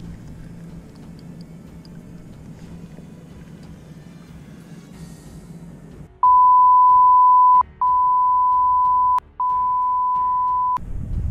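Three long steady 1 kHz censor bleeps, each about a second and a half with short gaps between, the first the loudest, dubbed over the audio about six seconds in after low background noise.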